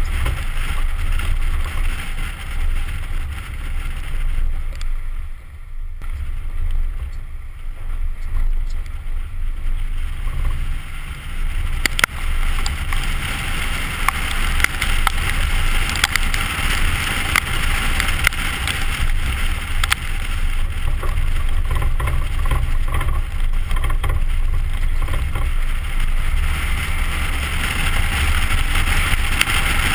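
2010 Ford Raptor's 6.2-litre V8 running as the truck drives off-road: a steady low rumble under a rushing noise, briefly easing off about five seconds in, with a few sharp knocks, one about twelve seconds in.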